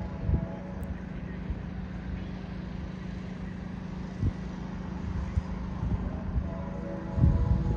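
GO Transit passenger train with an EMD F59PH diesel locomotive running with a steady low hum and rumble. A faint chord of steady tones sounds briefly at the start and again near the end, and low thumps from wind on the microphone come a few times, the strongest near the end.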